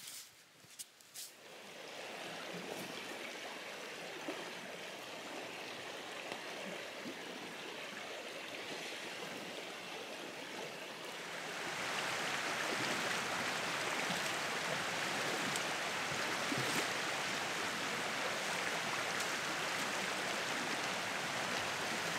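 River water rushing steadily over a ford, after a few faint knocks in the first second; the rush grows louder about halfway through and then holds steady.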